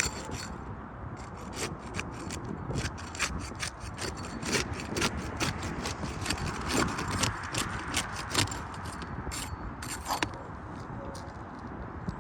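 Asphalt roof shingles being pried loose and their sealed tabs broken free: an irregular run of sharp clicks and cracks over scraping and rubbing.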